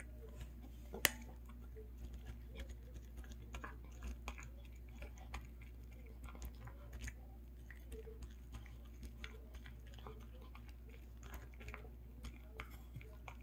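A poodle eating a dried-pollack and pork meal from a ceramic bowl: faint, irregular chewing with many small clicks and ticks, and one sharper click about a second in.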